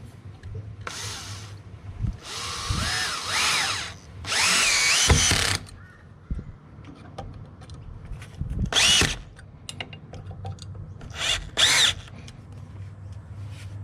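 Power drill driving screws into wall plugs to fix a lock box to a brick wall: about six short runs of the motor, its pitch rising and falling with each, the longest lasting about a second and a half.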